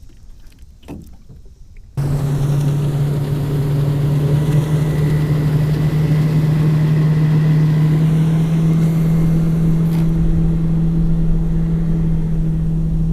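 Boat's outboard motor running at a steady speed, an even hum that does not change pitch. It comes in abruptly about two seconds in, after a short quiet stretch.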